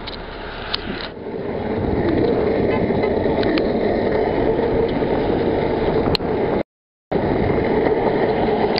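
Steady noise of street traffic passing by, building up about a second in; the sound cuts out completely for about half a second about two-thirds of the way through.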